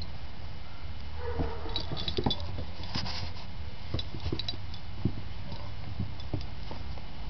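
Brussels griffons' toenails clicking and pattering irregularly on a concrete porch as they walk, over a steady low rumble.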